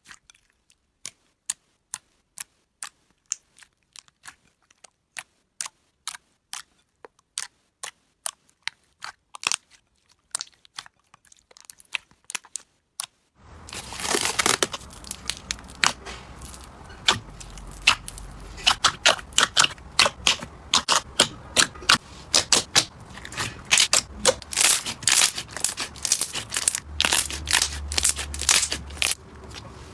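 Slime being squeezed and pressed by hand, making sharp sticky clicks and crackles, about two a second. A little under halfway in it changes to denser, louder crackling over a faint steady hiss.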